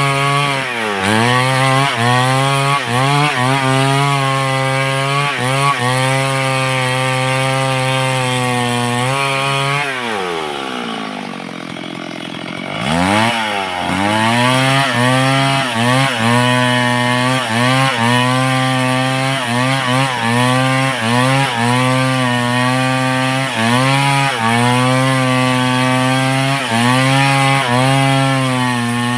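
Large two-stroke chainsaw cutting wood at high revs, its pitch dipping briefly about once a second. About ten seconds in it drops to idle, then revs back up about three seconds later and carries on cutting.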